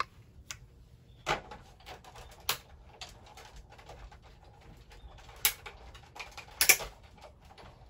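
Manual die-cutting machine being cranked as the acrylic plate sandwich with the die and cardstock rolls through: scattered clicks and creaks, with a few louder knocks.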